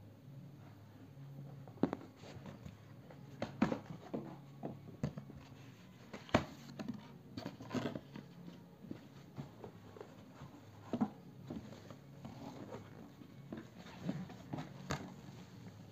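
Plastic bag wrapped around a monitor rustling and crinkling as hands press and shift it in its styrofoam packing, with irregular sharp crackles, over a faint low hum.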